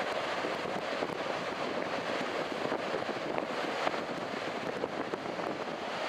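Strong wind buffeting the microphone over the steady wash of breaking surf: a continuous rush of noise with small crackling gusts.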